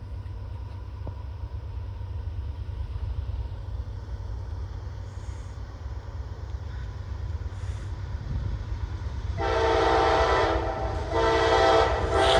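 Freight locomotive's multi-chime air horn sounding over a low rumble: it comes in loud about nine seconds in, breaks off briefly, then sounds again and holds.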